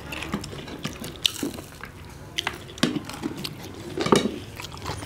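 Scattered light clinks of a spoon against plates and dishes, with small wet sounds of food being handled and eaten.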